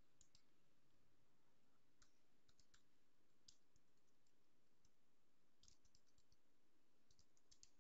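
Faint keystrokes on a computer keyboard, in short irregular clusters of quick clicks over near-silent room tone.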